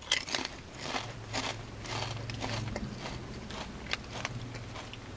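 Crunching and chewing a thin potato chip: a run of short, crisp crackles, with a low steady hum underneath for a few seconds.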